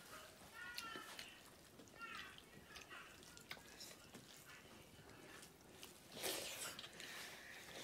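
Faint close-up eating sounds: small wet clicks and lip smacks from chewing, with a few short squeaky mouth sounds early on and a louder noisy burst about six seconds in.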